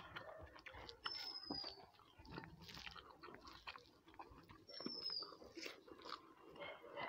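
Close-up chewing and mouth sounds of a person eating rice and curry by hand, with soft clicks of fingers working the food on the plate. A short high whistle that falls in pitch comes twice, about a second in and about five seconds in.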